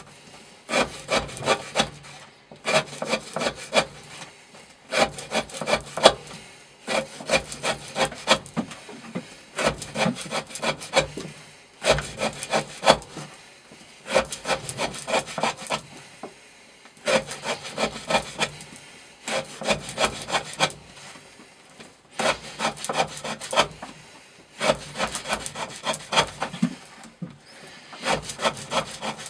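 A knife blade sawing through rope, cut after cut: each cut is a quick run of several sharp rasping strokes, repeating about every two seconds. This is a repeated rope-cutting test of the knife's edge, which by now is largely dull.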